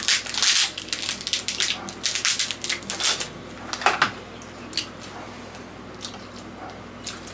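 Mud crab being eaten by hand close to the microphone: crab shell crackling and snapping with wet chewing and slurping. The crackles come thick and fast for the first three seconds, with a loud snap about four seconds in, then thin out.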